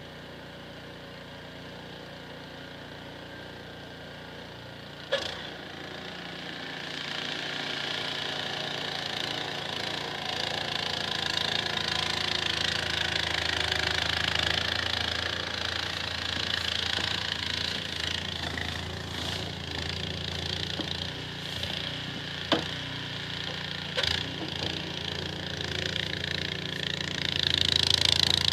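Small engine running steadily, joined about five seconds in by a rising noisy hiss that stays up, with a few sharp knocks.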